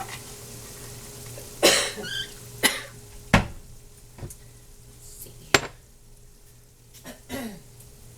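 Kitchen clatter of pots and utensils: about five sharp knocks and clinks spaced a second or so apart, over a faint steady hum.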